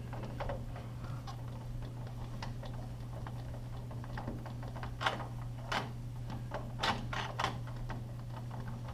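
Scattered light clicks and taps of a screwdriver and metal fittings as a sliding door's roller adjustment is turned down to bring the wheels onto the track, heaviest a few seconds in, over a steady low hum.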